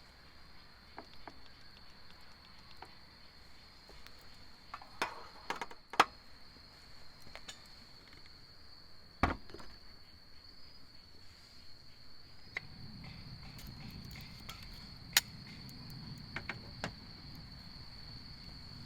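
Crickets chirping in a steady high trill, with several sharp knocks and clicks of gear being handled, the loudest about six seconds in and again about fifteen seconds in. A low steady rumble comes in about two-thirds of the way through.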